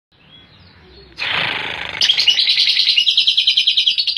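Lovebird ngekek: a long, fast chattering run of sharp high notes, about ten a second, starting about two seconds in. It is preceded by a brief harsh, noisy burst.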